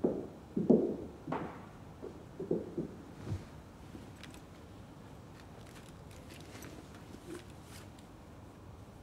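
A few soft footsteps and thumps on a wooden floor in the first three seconds or so, as a person sits down on a padded bench. Then faint rustling and light ticks as a fabric handbag is opened and rummaged through.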